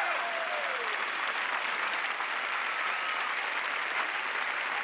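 A large audience applauding steadily, welcoming a performer who has just been introduced.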